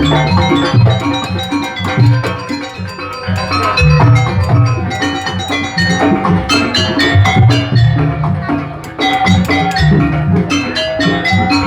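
Jaranan music: drums and pitched metal percussion playing a continuous rhythmic accompaniment.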